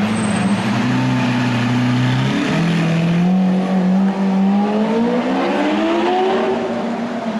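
Lamborghini Aventador V12 engine running at low revs, then accelerating away: about two and a half seconds in, the engine note starts climbing steadily in pitch for about four seconds before levelling off.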